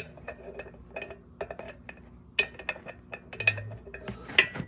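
Irregular metallic clinks and knocks of tools and metal bike parts being handled while a freewheel is fitted onto a wheel hub.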